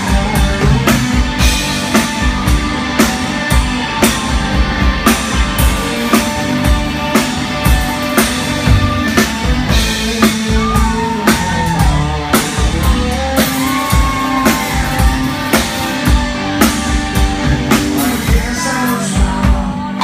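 Rock band playing live: a drum kit keeps a steady beat under electric guitar, with a singer's voice over the top.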